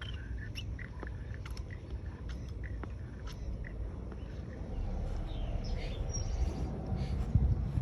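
Outdoor ambience: a steady low rumble like wind on the microphone, with scattered short bird chirps and light clicks throughout.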